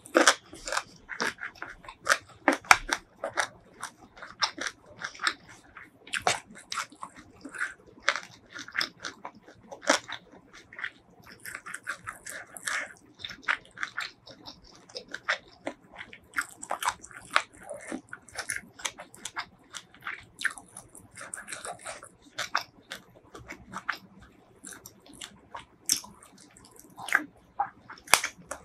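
A person chewing and biting food close to the microphone, with many quick, irregular mouth clicks and crunches.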